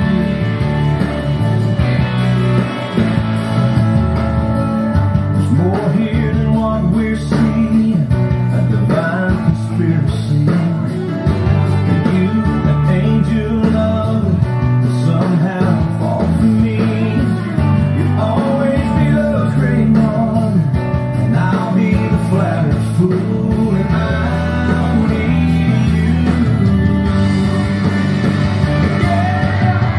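A rock-style song with guitar and a singing voice, playing steadily.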